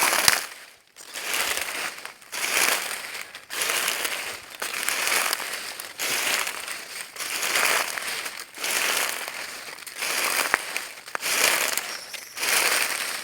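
Footsteps crunching through dry leaves, about one step a second in a steady walking rhythm, each step a crackling rustle.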